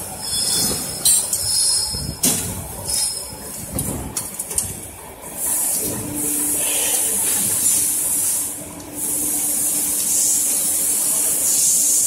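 Die-cast metal lock parts clinking and clattering as they are snapped off their casting runners by hand and tossed onto a heap of parts. About halfway in, a steady loud hiss with a low hum sets in and runs on under the clatter.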